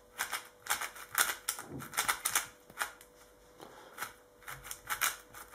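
YongJun MGC magnetic 4x4 speed cube being turned by hand: a quick, uneven run of plastic clicks and clacks as its layers turn, in clusters with a brief lull midway.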